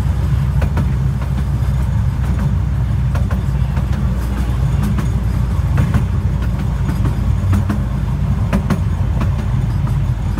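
Steady low rumble of a 12-inch gauge miniature railway carriage running along the track, with irregular clicks and clatter from the wheels on the rails.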